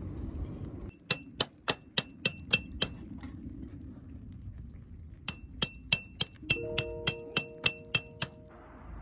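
Two runs of sharp metallic taps or clinks, about four a second, each with a brief ring. Soft background music with held notes comes in during the second run.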